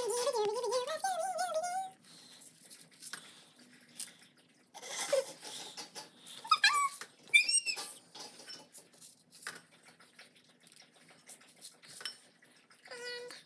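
Fast-forwarded kitchen sound: short squeaky, warbling high tones in the first two seconds, around the middle and near the end, among scattered light clicks and taps as sprinkles are shaken out over glazed mini donuts on wire cooling racks.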